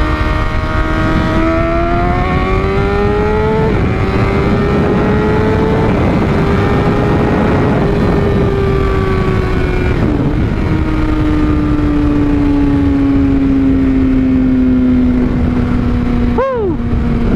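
Honda CBR600RR inline-four sport bike with a Toce aftermarket exhaust, accelerating hard. The engine note climbs, drops sharply at a clutchless quickshifter upshift about four seconds in, and climbs again. After another shift around ten seconds it eases steadily lower, with a brief rise and fall in pitch near the end, all over a heavy wind rush.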